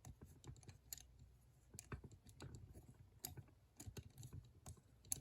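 Faint, irregular small metal clicks and scrapes: a lock pick and tension tool working the levers inside a Chubb patent lever padlock during picking.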